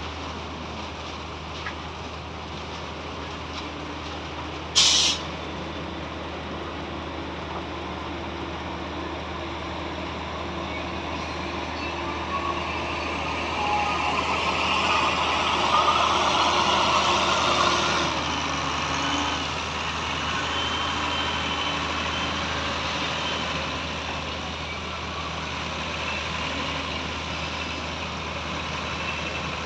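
Heavy diesel truck engines of a concrete pour's transit mixer and pump running steadily. A short sharp air-brake hiss comes about five seconds in, and midway a louder rushing noise swells for several seconds, then cuts off suddenly.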